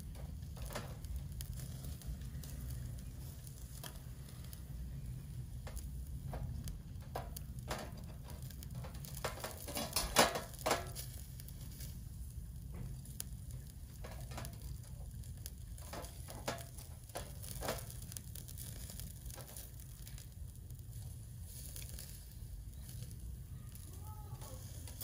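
Meat sizzling on a small tabletop BBQ grill, with scattered clicks of metal tongs tapping the wire grate as pieces are turned; the loudest run of clicks comes about ten seconds in.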